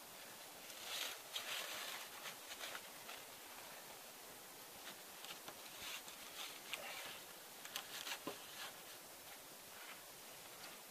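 Faint rustling and scraping of a tarp chair seat being handled and a wooden pole slid through its edge, with scattered light clicks and knocks in two busy spells.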